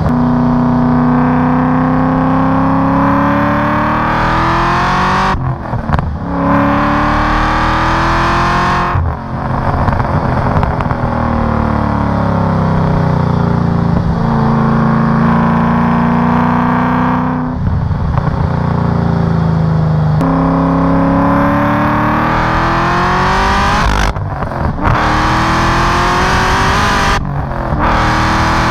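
Heavily modified Cadillac CTS-V's supercharged V8 with a loud aftermarket exhaust, pulling hard through the gears of its manual gearbox. The pitch climbs and falls in long sweeps, with about five short breaks where the driver changes gear.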